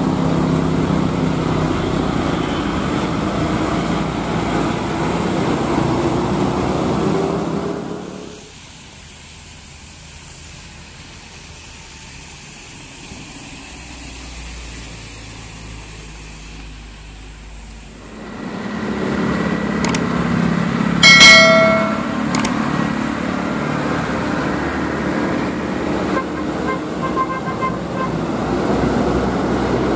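Diesel tow trucks driving past on the road, their engines running loud, with the engine pitch rising about six seconds in. After a quieter stretch of low rumble, traffic noise grows loud again, and a vehicle horn gives a short toot about 21 seconds in, the loudest sound.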